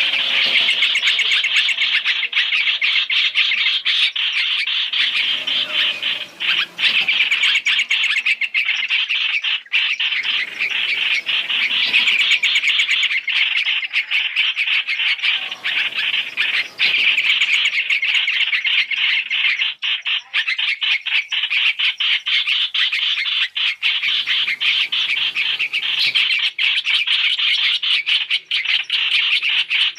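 Hoành hoạch (trao trảo) birds calling in a dense, unbroken chatter of chirps, played as a three-in-one lure call for bird trapping.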